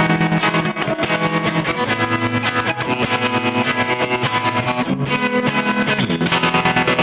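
Distorted electric guitar chords run through a BOSS SL-20 Slicer pedal, the sustained notes chopped into a rapid, even rhythmic pulse. The chords change about two seconds in and again near five seconds.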